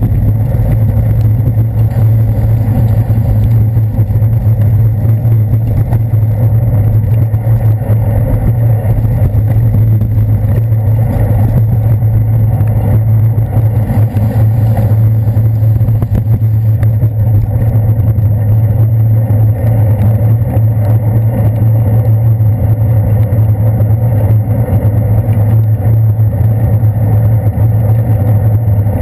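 Steady muffled rumble of a bicycle riding over wet city streets, picked up through a handlebar-mounted GoPro Hero 2's sealed housing, with the drone of traffic around it. A strong low hum holds unchanged throughout.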